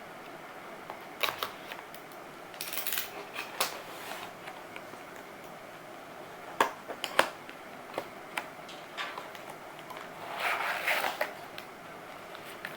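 A cardboard box of keycaps being cut and pried open with a blunt, rusty knife and its packaging handled: scattered scrapes, crinkles and clicks, with short clusters of scratching.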